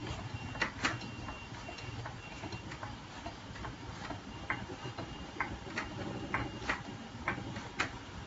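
Hand pump of a 15-ton manual hydraulic press worked with its lever, a sharp click at each stroke, roughly one a second and sometimes two close together, as pressure builds on the pellet die.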